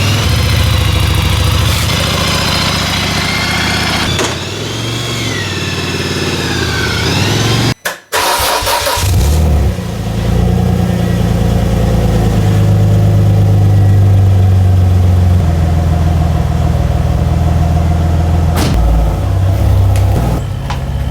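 Renault Clio V6's mid-mounted 3.0-litre V6 engine running, its revs rising and falling over the first several seconds. About eight seconds in the sound breaks off for a moment, then the engine runs on steadily.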